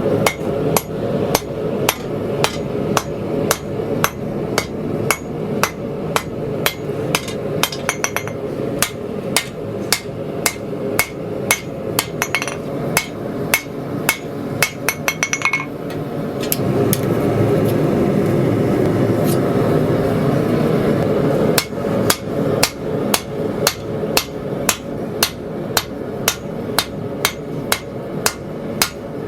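Hand hammer striking a hot 80CrV2 steel blade bar on an anvil in a steady rhythm, about two to three blows a second, as the blade's curved profile is forged. Past the middle the hammering stops for about five seconds while a steady rushing roar takes over, then the blows resume.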